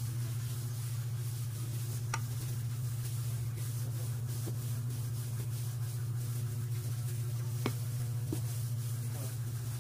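Steady low hum under faint rubbing as a stainless steel tumbler is rolled over a slice of white bread to flatten it, with two light clicks, about two seconds in and near the end.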